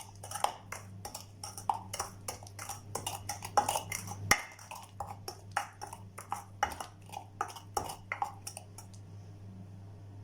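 A spoon clinking and scraping against a bowl in quick, irregular strokes as mashed ripe plantain and sugar are stirred together, with one sharper knock partway through; the stirring stops about nine seconds in.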